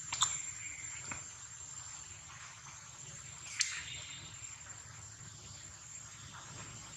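Outdoor background with a steady high-pitched insect drone, broken by a few short sharp clicks: one just after the start, one about a second in, and one about three and a half seconds in.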